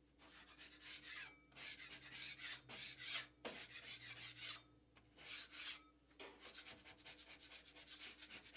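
Metal drywall scraper scraping dried joint compound off a wall patch in a run of short strokes with brief pauses between them, shaving the high spots flush with the wall.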